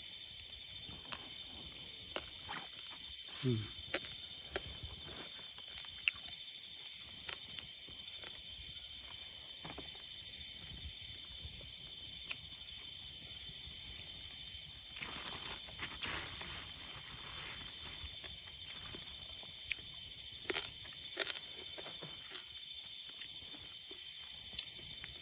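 Night insect chorus, crickets and similar insects, giving a constant high-pitched drone with a higher trilling layer that swells and fades every few seconds. Scattered small clicks and knocks sound over it.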